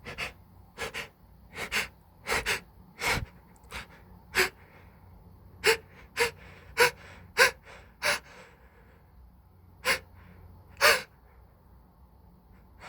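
A person's allergy sneeze building up: a long string of short, sharp gasping breaths, several coming about half a second apart near the middle, with no sneeze yet.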